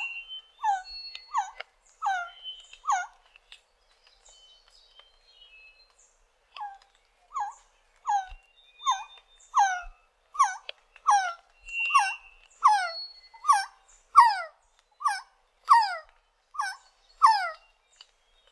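Resplendent quetzal calling: short, whining, down-slurred notes repeated about 1.3 times a second. A few come at first, then after a pause of about three seconds a long steady run that grows louder. Faint high whistles of other birds sound behind.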